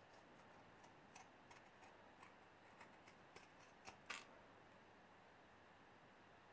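Pinking shears snipping through felt: a string of faint, quick clicks of the blades closing, about three a second, that stops about four seconds in.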